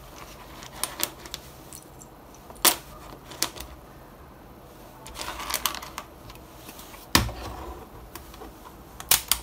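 Irregular clicks and knocks of small electronic parts and a handheld multimeter with its test leads being picked up and set down on a workbench mat, with a heavier knock about seven seconds in.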